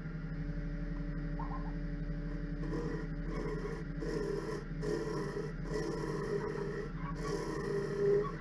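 Wood lathe motor running with a steady hum; about three seconds in a turning tool starts cutting into the spinning yew bowl blank, a rough scraping sound in repeated passes broken by short pauses, as the inside of the bowl is hollowed.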